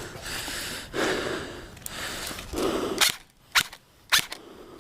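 Airsoft gun firing three sharp shots about half a second apart, starting about three seconds in.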